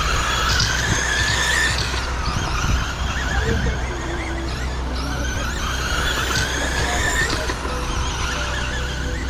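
Electric motors of several Traxxas Slash Mudboss RC trucks whining together, overlapping pitches rising and falling as the trucks accelerate and back off through the laps of a race.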